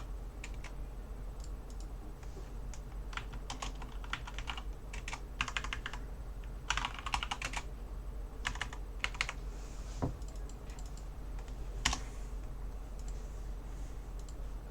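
Typing on a computer keyboard in short bursts of rapid key clicks, with a few single key presses near the end.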